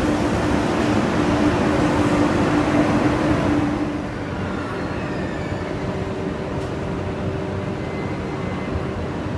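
A TGV trainset running along the platform, a steady rumble with a constant low tone. About four seconds in it changes abruptly to a quieter steady hum from a TGV at the platform.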